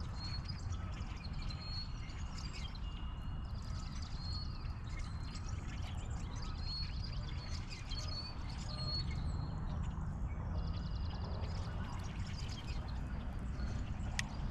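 Small birds chirping, short high calls repeated on and off, over a steady low outdoor rumble.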